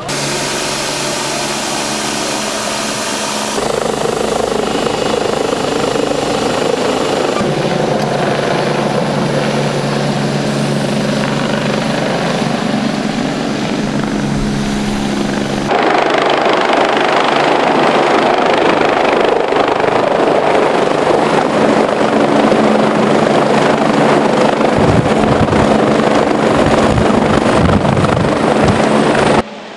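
Rescue helicopter's turbine and rotor running: a steady loud whine and rumble. The sound jumps abruptly a few seconds in and again about halfway, and grows louder and fuller for the second half.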